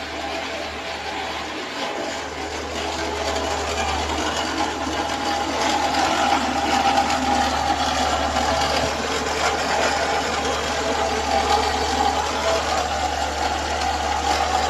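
Renault Sandero 1.6 8-valve four-cylinder engine running with a loud, rapid mechanical ticking clatter from the top of the engine. It grows somewhat louder a few seconds in. The owner takes it for a cylinder-head or rocker-arm (valvetrain) fault.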